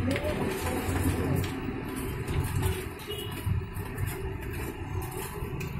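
Combro (cassava fritters) deep-frying in a wok of hot oil, a steady sizzle, over the low rumble of street traffic and car engines.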